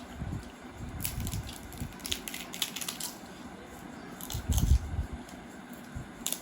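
Close-miked eating: chewing and crunching food, with scattered sharp clicks and crackles. A few low thumps come just past halfway, the loudest part.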